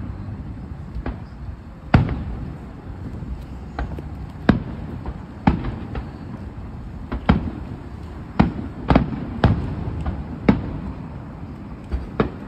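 Aerial fireworks shells bursting: about a dozen sharp bangs at irregular intervals, some in quick pairs, over a steady low rumble.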